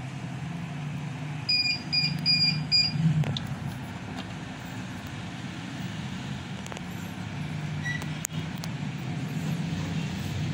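Four quick electronic beeps from a piece of equipment about a second and a half in, over a steady low hum, with a few faint clicks later on.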